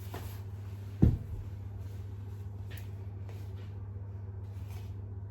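Kitchen handling: a single dull thump about a second in, with faint scraping and shuffling, over a steady low hum.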